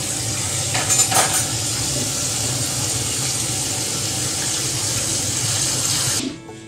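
Steady rushing noise, like wind or running water, with a couple of faint clicks about a second in; it cuts off suddenly near the end.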